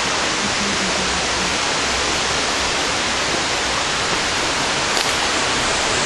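Loud, steady rush of falling water from the Krushuna waterfalls, an even roar with no breaks.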